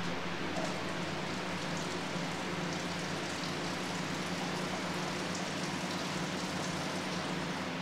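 Box fan running: a steady whooshing rush of air with a faint low motor hum under it.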